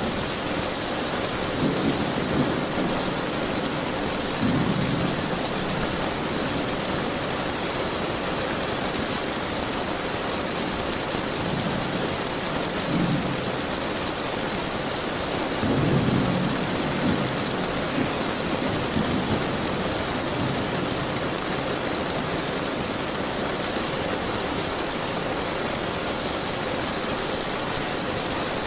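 Steady rain falling, with several low rumbles of thunder through the first twenty seconds, the loudest about sixteen seconds in.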